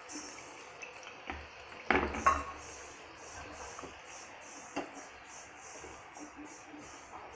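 Metal skimmer knocking and scraping against the frying pan as fried gujiya are lifted out of hot oil, with the loudest clanks about two seconds in. The oil sizzles steadily underneath.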